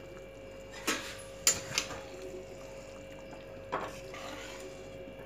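Metal spoon stirring thick kofta curry in a kadhai, with a few clicks of the spoon against the pan: about a second in, twice around a second and a half, and near four seconds. A faint steady hum runs underneath.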